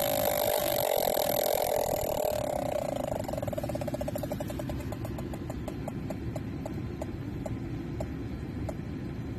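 Handheld combustible gas leak detector at a small leak in a furnace's flexible gas connector, sounding a continuous tone. About three seconds in the tone breaks into rapid beeps that slow steadily to roughly one a second.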